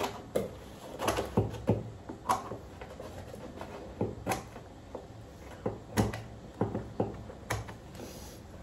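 Scissors snipping wallpaper in short, irregular cuts, with the paper rustling as it is worked around the pipes.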